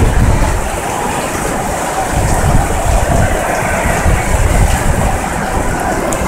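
High wind buffeting the microphone in a severe thunderstorm, with torrential rain pouring down: a loud, steady rush with gusts of low rumble that swell and ease, strongest around two to three seconds in and again near the five-second mark.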